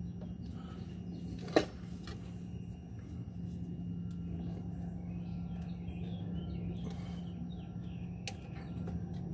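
Steady low background hum with a sharp click about one and a half seconds in and another near the end, from handling the camera or the plastic connector parts. Faint high chirps, like distant birds, come through in the second half.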